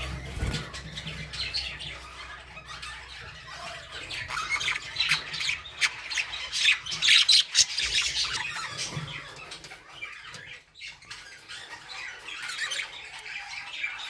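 Budgerigars chattering: a busy, irregular run of chirps, squawks and clicks, loudest a little past halfway through.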